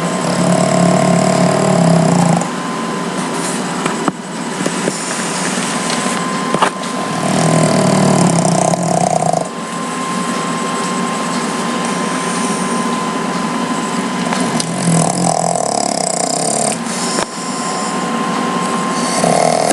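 A sleeping pet snoring: a long snore comes back every several seconds, four in all, over a steady thin background tone.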